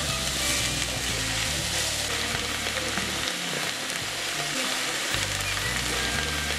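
Chopped onion and diced tomato sizzling steadily in hot oil in a frying pan as a spatula stirs them, over background music with a bassline.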